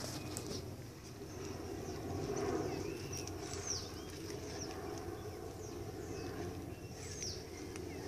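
Birds calling: several short, high chirps and down-sweeping calls scattered over a steady low background rumble.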